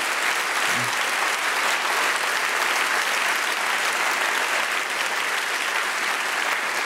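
Studio audience applauding steadily, a dense clapping of many hands that holds at one level throughout.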